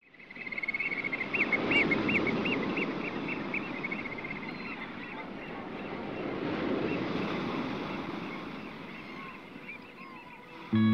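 Seaside ambience: a rushing wash of waves that swells twice, with a bird calling in a quick run of repeated notes over the first few seconds. Music comes in at the very end.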